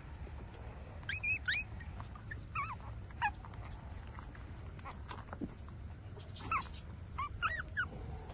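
Eight-day-old puppies squeaking and whimpering while nursing: short, high, wavering squeals in a few small clusters. A steady low rumble runs underneath.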